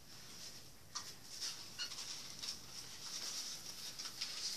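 Small plastic toy vehicles being handled and pushed over carpet: faint scraping and scattered light clicks.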